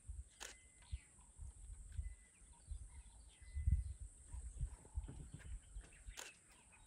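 Male lion making odd low noises in short, uneven bursts, not a roar; the loudest burst comes about three and a half seconds in.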